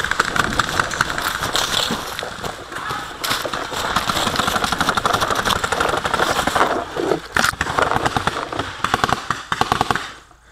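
Rapid crackling pops of paintball markers firing in quick strings, over the rustle and jostle of a player running through dry leaves. The popping stops suddenly near the end.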